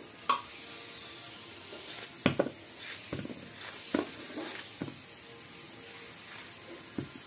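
Bottle gourd being cut into chunks by hand with a knife: a handful of short, sharp taps, spread out, as the blade goes through the flesh and pieces drop onto the plate, over a steady background hiss.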